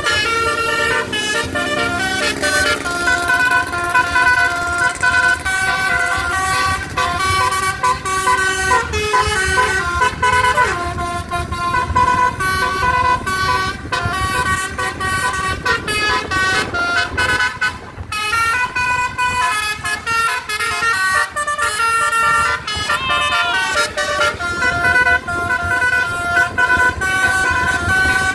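Basuri telolet horn on a Rahayu Sentosa bus playing a melody: several air-horn tones sound together and step from note to note for the whole stretch. A low rumble of vehicle noise runs underneath.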